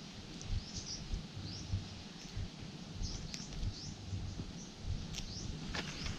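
Small birds chirping: short rising chirps repeated every second or so, over a low rumble, with a few sharp clicks near the end.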